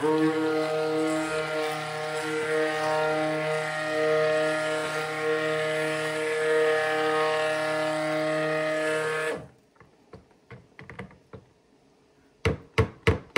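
Cuisinart Smart Stick immersion blender running steadily in a bucket of black activated-charcoal cold-process soap batter, blending it toward a thicker trace. It cuts off about nine seconds in. Near the end, a quick run of sharp knocks begins.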